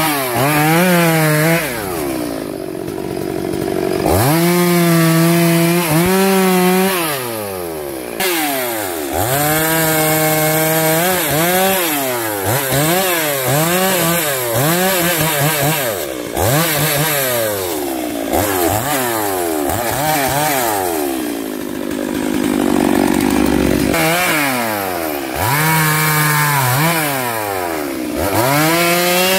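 STIHL MS 382 two-stroke chainsaw cutting through the branches of a felled tree, its engine revving up to full throttle and dropping back over and over. Twice it settles to idle for a couple of seconds.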